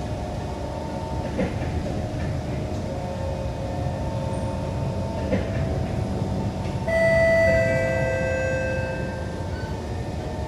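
Kawasaki C151 metro train running, heard from on board: a steady low rumble with a steady motor whine, and two sharp clicks. About seven seconds in a louder high ringing tone sets in suddenly and fades away over the next two seconds.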